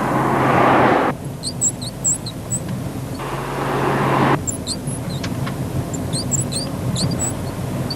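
Volkswagen running with a steady low engine hum, and clusters of short, high-pitched squeaks: the mystery squeak in the car. Two louder rushing surges of about a second each come at the start and about three seconds in.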